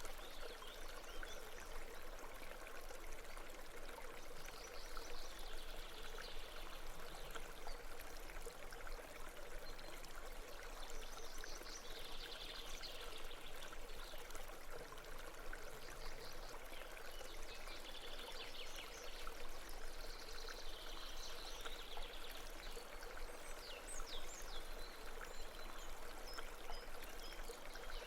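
Stream flowing over rocks: a steady babbling and trickling of water.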